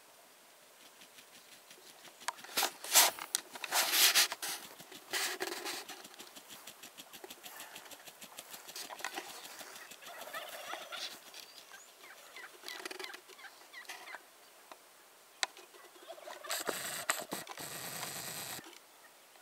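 Wild turkeys gobbling: a series of rattling calls, the loudest about three and four seconds in, with fainter calls after. A burst of noise lasts about two seconds near the end.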